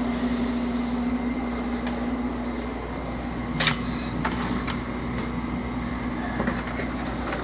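Steady motor hum with one low, even tone, and a few light clicks, the clearest about three and a half seconds in.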